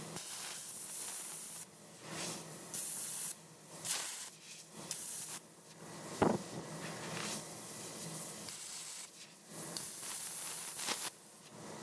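ArcCaptain Cut 50 plasma cutter hissing in bursts as the torch cuts 3/4-inch steel at 50 A and 60 PSI, stopping and restarting several times, with a single knock about six seconds in. The cut does not go all the way through the plate, which the operator puts down to moving the torch across it too quickly.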